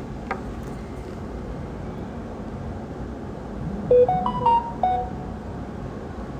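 A phone's electronic chime: a short run of stepped beeping tones about four seconds in, lasting about a second, over steady room noise.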